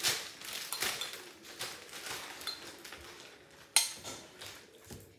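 Kitchen utensils scraping and clinking against a bowl and containers, with one sharp clink a little under four seconds in, the loudest sound.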